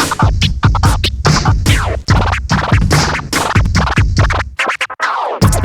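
Hip-hop music track with turntable scratching over a heavy beat; the bass cuts out for a moment near the end before the beat comes back.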